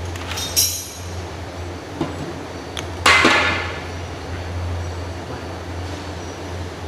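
A few sharp clinks and knocks of metal and PVC water-pipe fittings being handled, the loudest about three seconds in with a short ring, over a steady low hum.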